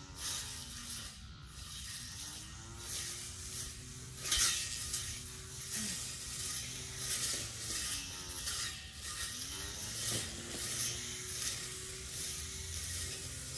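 Battery-powered weed eater with a cutting blade, its electric motor running with a hum whose pitch dips and recovers as the blade meets grass. Repeated short swishing bursts come from the blade cutting through grass and weeds.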